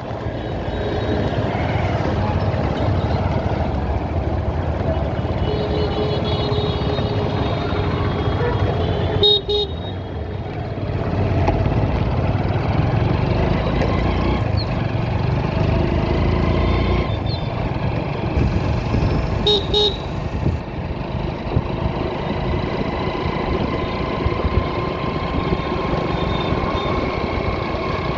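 Motorcycle riding through traffic: steady engine, road and wind noise. Vehicle horns sound over it: a horn for a couple of seconds about six seconds in, then short double beeps about nine and twenty seconds in.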